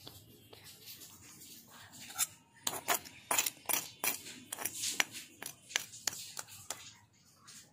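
Kitchen utensils clicking and scraping against dishes in a quick, irregular run, starting about two seconds in.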